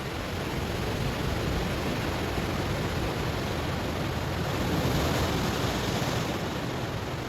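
Ocean waves breaking on a stony shore: a steady rush of surf that swells to a peak about five seconds in, then eases back.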